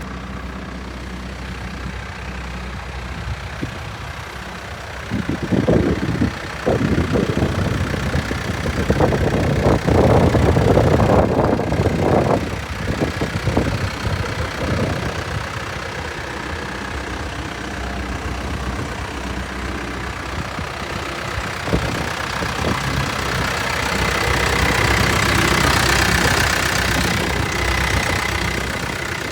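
Case 590 Super M backhoe's diesel engine idling, with a stretch of louder, uneven surges from about five to fifteen seconds in. A high whine swells and fades again near the end.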